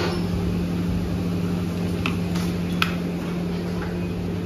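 A steady mechanical hum with an even rushing haze, like a running fan or motor, broken by two short light clicks about two and three seconds in.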